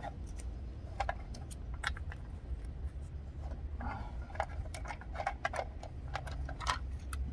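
Irregular light clicks and ticks of a Torx screwdriver and screw turning in the plastic foot of a roof-rack crossbar as the screw is backed out, over a low steady rumble.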